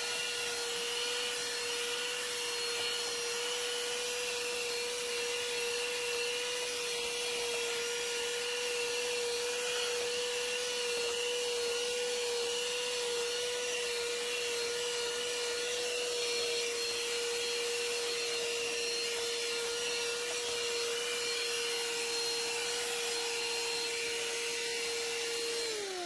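Ryobi ONE+ P713 18-volt cordless handheld vacuum running steadily with a small brush nozzle on the end: a constant motor whine over a rush of air. The whine drops in pitch as the motor stops right at the end.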